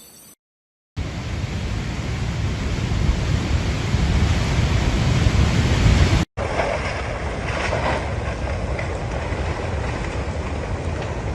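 Rushing floodwater: a loud, steady, noisy rush heavy in the low end. It starts after a brief silence near the start and breaks off for a moment about six seconds in before going on.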